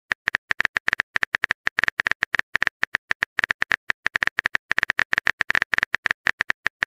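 Typing sound effect of a chat-story app: a fast, uneven run of short keyboard clicks, about eight to ten a second, as a message is typed out letter by letter.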